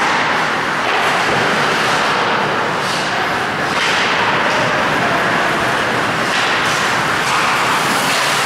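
Loud, steady wash of noise from an ice hockey game in play, with no clear separate events.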